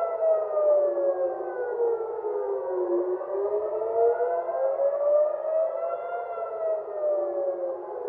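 Civil defense air-raid sirens wailing a missile-launch alert: at least two sirens overlap out of step, each tone slowly rising and falling in pitch, one cycle about every six seconds.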